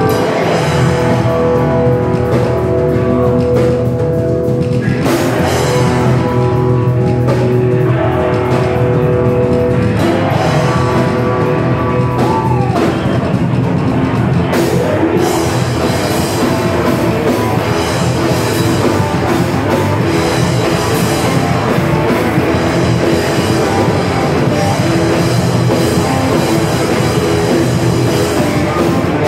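Live hardcore band played loud through a club PA: held, ringing electric guitar chords over bass and drums, with the full band and cymbals coming in harder about halfway through.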